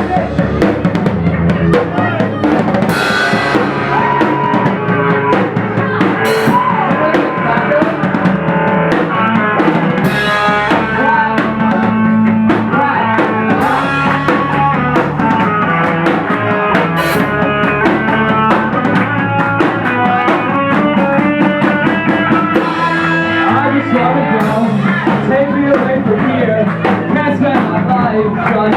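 Live rock band playing at full volume: drum kit with bass drum, snare and cymbals driving under distorted guitars, recorded from the audience.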